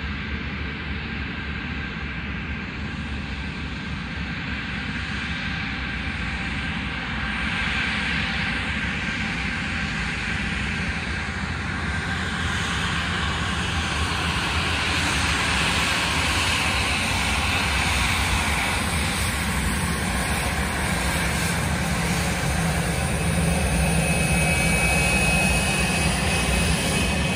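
Cessna Citation X business jet taxiing, its two Rolls-Royce AE 3007 turbofans at taxi power: a steady whine and rush that grows gradually louder as the jet draws near, with a clearer high whine coming up near the end as it passes close.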